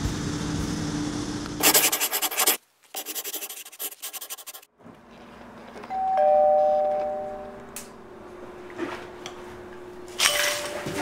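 A doorbell-style two-note chime sound effect, falling from the higher note to the lower, rings for about a second and a half starting about six seconds in. Earlier there are two short spells of rattling noise. Near the end, ice cubes clatter into a glass as they are poured.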